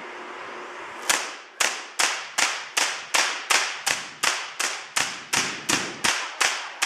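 High-voltage sparks from the world's largest air-insulated Van de Graaff generator, cracking one after another at about three a second, starting about a second in. Each is a sharp, loud snap that fades quickly.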